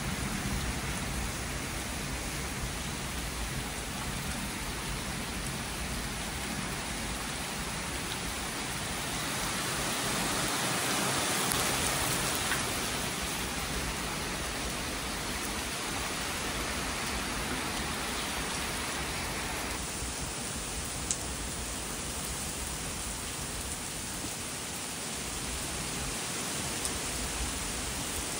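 Heavy hurricane rain pouring steadily through the trees, a dense even hiss that swells louder for a few seconds about ten seconds in. A single sharp drop tick stands out about two thirds of the way through.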